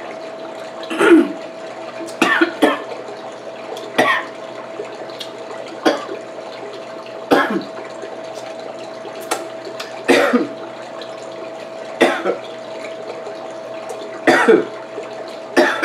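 A woman coughing in short fits, a single or double cough every one or two seconds, as when food goes down the wrong way. A steady hum runs underneath.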